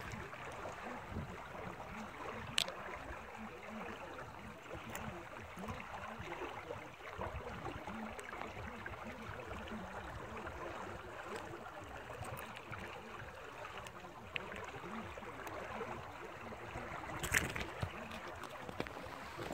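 Water pouring out of a culvert into a canal, a steady even rush, with a couple of short clicks: one about two and a half seconds in and a louder one near the end.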